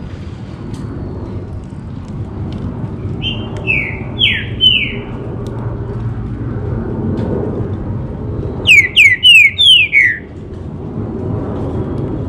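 Green-winged saltator (trinca-ferro) singing two short phrases of loud, clear whistled notes, each note sliding downward: three notes about three seconds in and four notes around nine seconds. A steady low rumble runs underneath.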